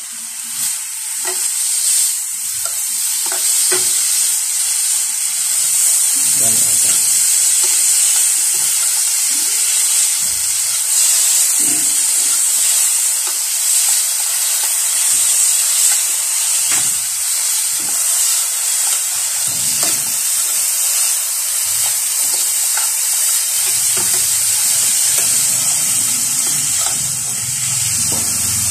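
Shirataki noodles and pesto sizzling in a hot non-stick pan, the steady sizzle building over the first couple of seconds, while metal tongs stir and toss them with scattered scrapes and taps against the pan.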